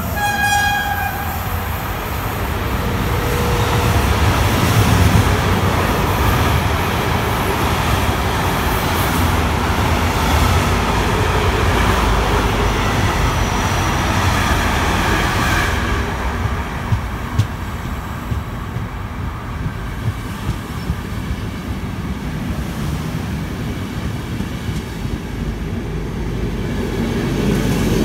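InterCity passenger coaches passing through the station: a steady rumble of steel wheels on the rails, with a few sharp clicks in the second half as wheels cross rail joints. A locomotive horn's note dies away in the first second.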